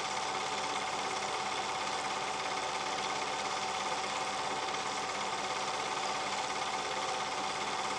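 Film projector running: a steady motor whir with a fast, even clatter of the film mechanism, unchanged across the cuts in the picture.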